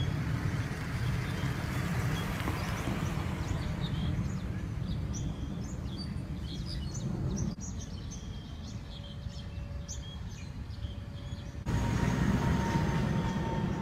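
Outdoor ambience: a steady low rumble with birds chirping over it in short calls. The background shifts abruptly twice, about halfway through and near the end, where the recording cuts between shots.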